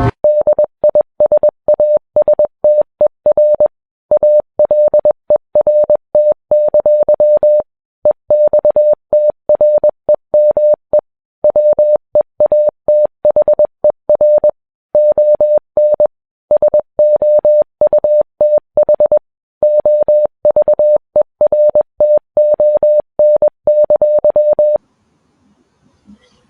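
Electronic alert beep, one steady mid-pitched tone keyed rapidly on and off in runs separated by short pauses, stopping shortly before the end.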